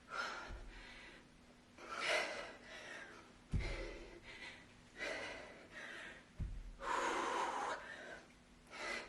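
A woman breathing hard from exertion during kettlebell double-handed cleans, with forceful exhales and gasps every second or two and one longer exhale near the end. Dull low thuds come about every three seconds.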